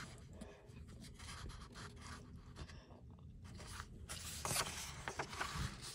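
Faint rustling of a paperback picture book's pages under a hand, with a louder rustle of a page being turned about four and a half seconds in.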